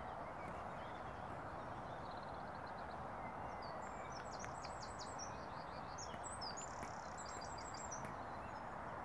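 Small birds chirping in quick, high runs, mostly in the second half, over a steady background hiss.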